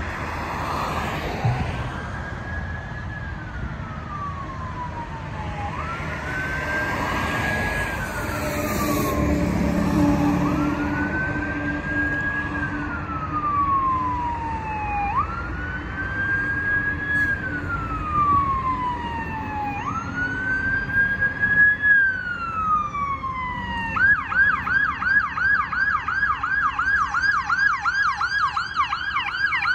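Fire brush truck's electronic siren on a slow wail, rising and falling about every five seconds. It switches to a fast yelp of about four cycles a second as the truck nears, with road traffic underneath.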